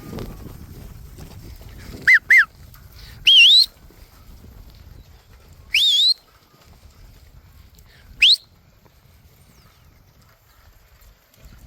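A stock dog handler's whistle commands: two quick falling notes about two seconds in, then three separate rising whistles about three, six and eight seconds in, directing a working dog on stock.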